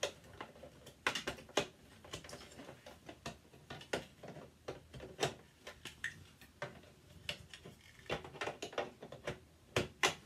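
Hard plastic dollhouse parts clicking and knocking as they are handled and fitted together, in irregular taps with a louder knock near the end.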